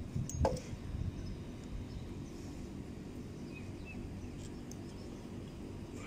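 Steady low background hum, with a couple of small clicks near the start and a few faint ticks later on.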